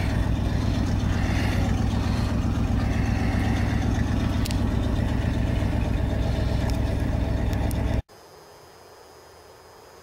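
1978 GMC Suburban's original 350 V8 with Quadrajet carburettor idling steadily, heard inside the cab, shortly after a cold start in freezing weather. About eight seconds in the sound cuts off abruptly to a much quieter steady hum.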